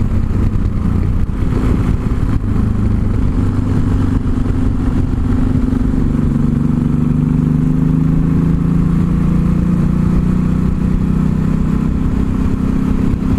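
Yamaha XT 660 Z Ténéré's single-cylinder engine running under way on the road, with wind rushing over the helmet microphone. About six seconds in the engine note shifts lower and then climbs slowly.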